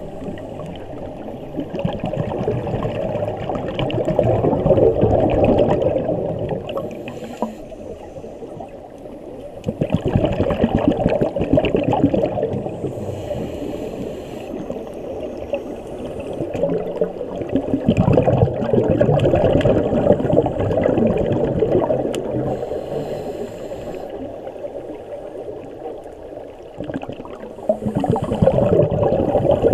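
Scuba diver breathing through a regulator underwater: about four long bubbling exhalations several seconds apart, with short hissing inhalations between them.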